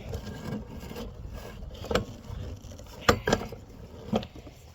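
Brush and woody branches being cut and handled during clearing: rustling, with four sharp snaps or clips, two of them close together about three seconds in.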